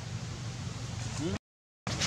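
Steady low outdoor background noise with a few faint ticks and a short rising squeak about a second in; the sound then cuts out completely for about half a second.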